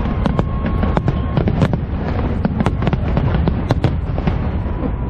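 Fireworks display going off: a rapid string of sharp bangs and crackles, about three a second, over a dense low rumble.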